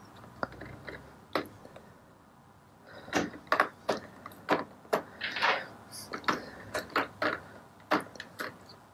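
Small mild-steel bolts and washers being picked up and set into a plastic tub of cleaning solution: a series of light clinks and clacks of metal against metal and plastic, a few at first, then many in quick succession through the second half.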